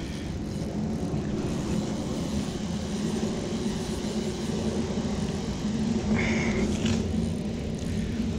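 Steady low rumble of road traffic, with a brief higher-pitched sound about six seconds in.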